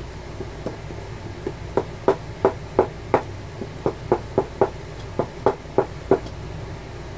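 Leather battery case tapped repeatedly against the edge of a wooden block: a run of sharp knocks, about three a second, starting faintly and then strong for a few seconds before stopping near the end. The tapping works the old battery loose from the case.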